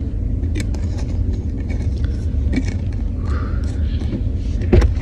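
Steady low rumble inside a car's cabin, with a few faint clicks and a single thump just before the end.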